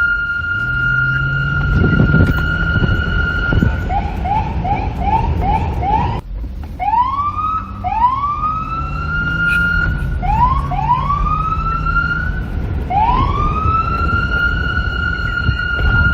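Police car siren: a steady high tone, then a quick run of short rising yelps, about two and a half a second. It breaks off about six seconds in and restarts with slower whoops that rise and hold at the high tone, over a low rumble of wind.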